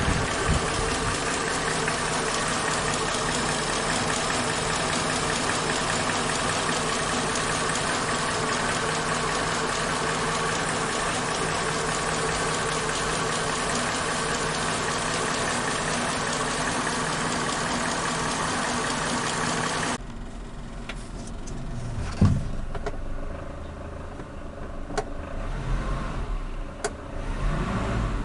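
Suzuki Katana engine running steadily. About two-thirds of the way in the sound cuts abruptly to a quieter low rumble with a few sharp clicks.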